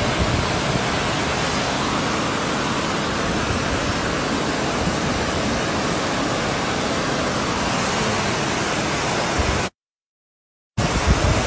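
Fast-flowing flash floodwater rushing in a steady, unbroken wash of noise. It cuts out completely for about a second near the end.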